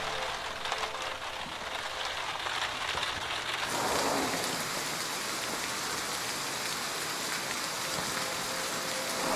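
Steady rain falling, turning heavier and hissier about four seconds in.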